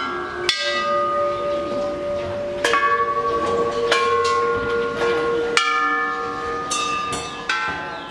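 Hanging metal Thai temple bells struck one after another with long wooden strikers, about six strikes a second or two apart. Each bell rings on at its own pitch, so the tones overlap and slowly die away.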